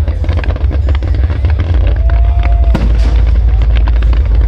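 Fireworks display: rapid crackling and bangs over a deep rumble, with one loud bang a little past the middle, and music playing along.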